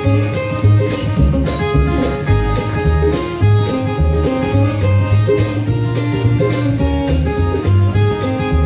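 Live bluegrass band playing an instrumental intro: quick picked acoustic guitar and fiddle over a steady upright bass pulse, with no singing yet.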